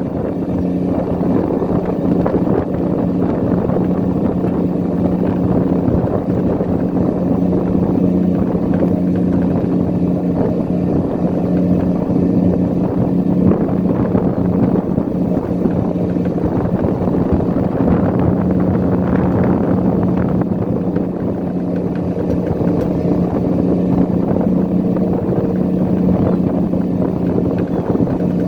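Engine of a crab-trap fishing boat running steadily at a constant speed, with a steady low hum throughout.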